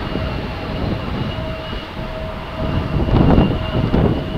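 Jet airliner on final approach, heard as a steady distant engine rumble with a faint high steady tone over it. Wind buffets the microphone in gusts about three seconds in.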